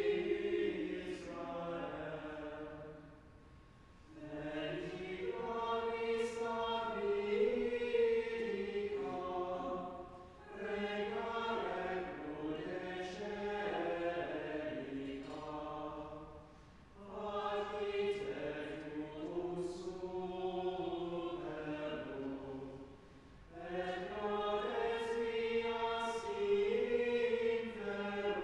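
Choir singing Latin liturgical chant, in phrases of about six seconds, each followed by a short pause for breath.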